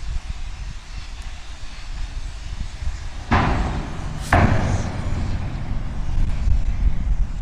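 Two sharp bangs about a second apart, roughly halfway through, the first trailing off briefly, over a steady low rumble of wind on the microphone.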